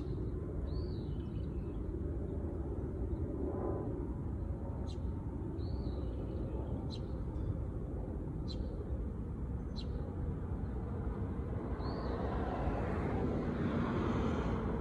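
Outdoor background noise: a steady low rumble with short high chirps every second or two, and a swell of broader noise in the last few seconds.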